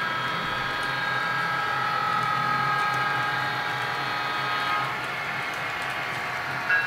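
Model diesel locomotive running, a steady hum of several tones over a low drone. The tones fade about five seconds in, and a short higher tone sounds near the end.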